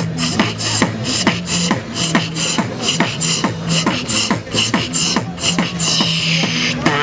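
Beatboxing through a handheld microphone and PA: a fast, steady beat of deep kicks and sharp hi-hat-like clicks, about four hits a second, with a low hummed bass note coming and going underneath.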